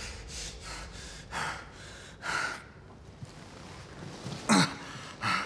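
A man breathing hard in short, ragged breaths, then a loud gasp about four and a half seconds in, as he comes out of a nightmare.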